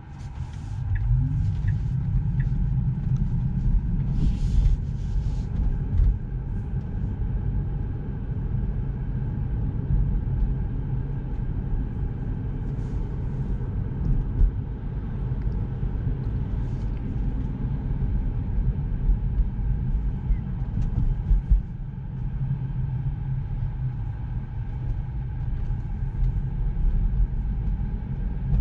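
Steady low road and tyre rumble of a Tesla Model 3 on the move, starting up suddenly with a short rising tone as the car gets under way.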